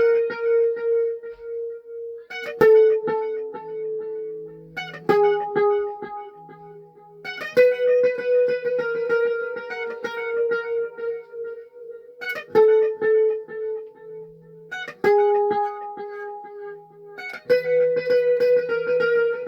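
Electric guitar tuned to C# standard, played alone: a ringing high note held under picked notes and chords, with a new phrase struck about every two and a half seconds.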